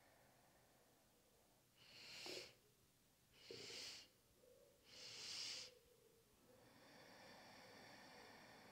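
A person's breath: three short, sharp inhalations about a second and a half apart, each a little longer than the last. These are the three 'sips' of a staged inhale in a yogic sipping-breath exercise.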